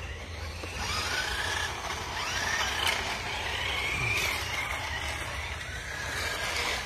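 Small electric motor of a Mario Kart Mini remote-control racer whining as it drives, its pitch rising and falling several times as it speeds up and slows, over a low steady rumble.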